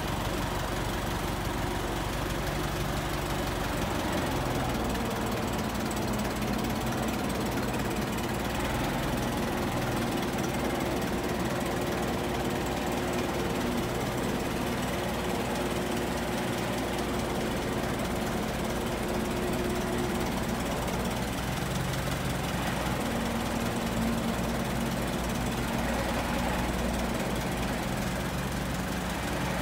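1923 Ford Model T's four-cylinder side-valve engine running steadily at low speed while the car rolls slowly, with a shift in its note a little past the middle.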